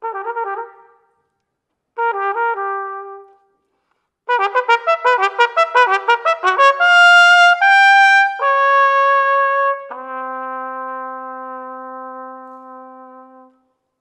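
Solo trumpet: two short phrases, then a quick run of notes leading into higher held notes, ending on a long low note that slowly fades away.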